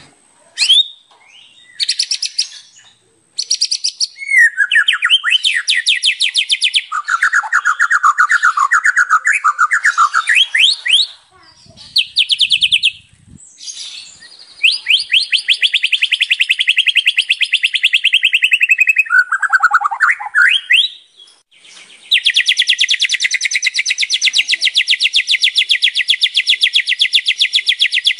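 White-rumped shama (murai batu) singing loudly and without pause, a varied song full of imitated phrases (isian). It runs from quick rising and falling whistles into long, fast rattling trills, the longest filling the last several seconds.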